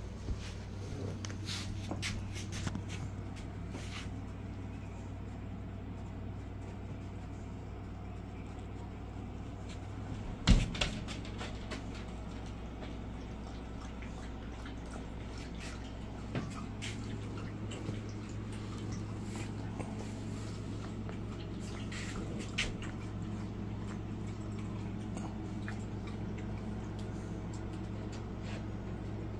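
A steady low hum, with scattered soft clicks and knocks and one loud thump about ten seconds in.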